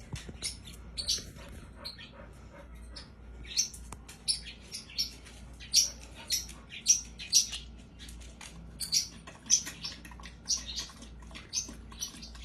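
Small pet bird chirping: a rapid, irregular run of short, sharp, high-pitched chirps, a few each second.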